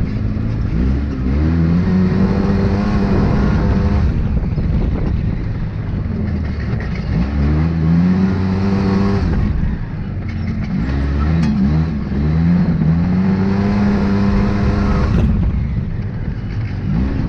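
Off-road buggy's engine heard from the cockpit, accelerating hard in repeated surges. The pitch climbs and holds, then drops back as the driver eases off, about three times, with a fourth surge starting near the end.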